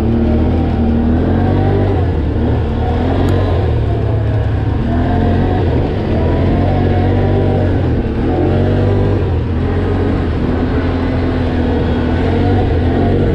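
Can-Am ATV engine running on a dirt trail, heard from the rider's seat, its revs rising and falling repeatedly with the throttle.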